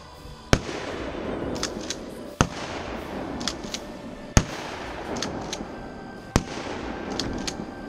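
Pump-action shotgun firing dragon's breath rounds: four shots about two seconds apart, each followed by a rushing hiss, with sharp clacks between the shots.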